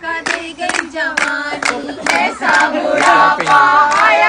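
A group of women singing together in unison while clapping their hands in a steady rhythm, about two claps a second.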